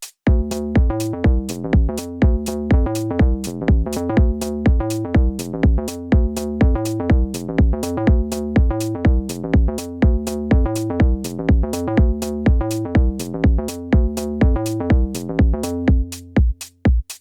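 Deep acid house loop programmed on a Maschine MK3: a steady four-on-the-floor kick at about two beats a second under a pitched synth bassline that keeps changing notes. The bassline thins out near the end, leaving the kick and a held note.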